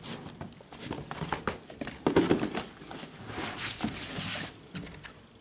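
Hands handling a sneaker and its box and wrapping paper: scattered taps and knocks, a louder thump about two seconds in, then a rustle lasting about a second.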